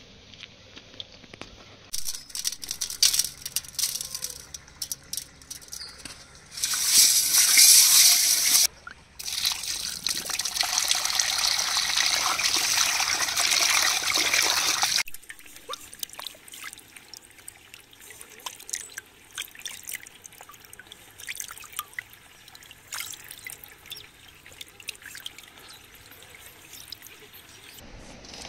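Water poured into an aluminium vessel of whole fish and hands splashing and rubbing the fish as they are washed. The pouring is loudest in a short gush about a quarter of the way in, then, after a brief stop, a steady pour of about five seconds; quieter scattered splashes and clicks follow.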